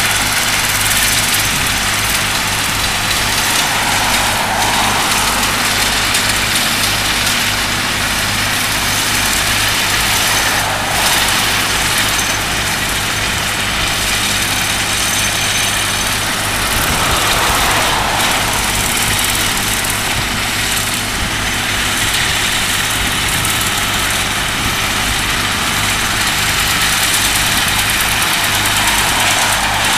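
Heavy diesel machinery running steadily: a Cat 311D LRR excavator working alongside a dirt screening plant. The sound swells briefly several times as the excavator works.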